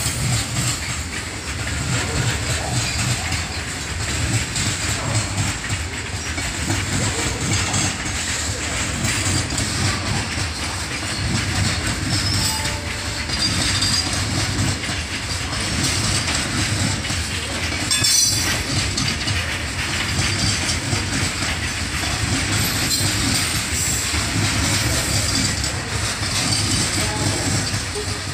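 Indian Railways goods train of covered wagons rolling past, its steel wheels rumbling and clattering steadily on the rails, with a single sharp click about two-thirds of the way through.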